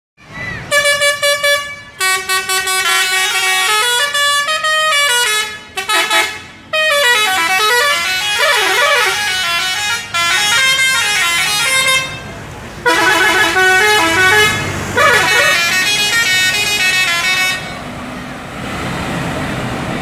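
Multi-tone "telolet" horn on a Scorpion Holiday tour bus playing melodies: loud phrases of stepping notes with short pauses between them, and a wavering, siren-like stretch in the middle. The horn stops near the end.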